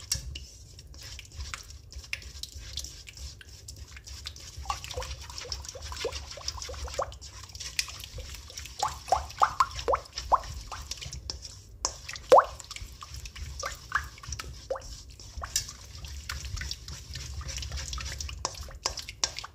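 Thick egg-and-flour batter being stirred with a silicone spatula in a stainless steel bowl: irregular wet plops and squelches with light clicks of the spatula against the bowl, one sharper smack about twelve seconds in.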